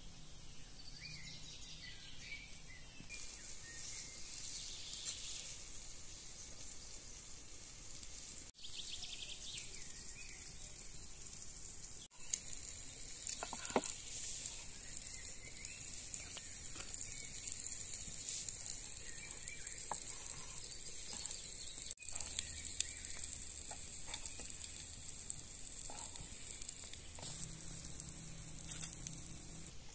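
Forest ambience with a steady high hiss, and birds chirping in the first few seconds. In the middle stretch a knife slices raw liver on a wooden cutting board, with a few sharp taps of the blade on the board.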